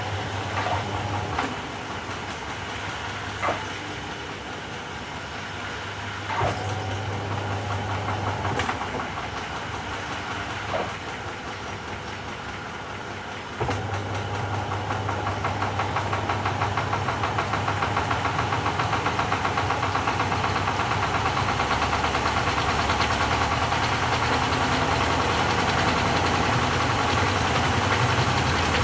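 Samsung 6.5 kg top-loader washing machine running. A low hum cuts in and out with scattered knocks, then about halfway through the motor kicks in and the drum spins up, growing steadily louder.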